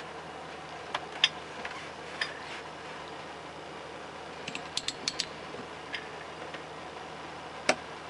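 Torque wrench ratchet working the compressor-wheel nut on a TD05H turbocharger shaft: scattered light metallic clicks, including a quick run of four or five about halfway through and a louder single click near the end, over a steady low hum.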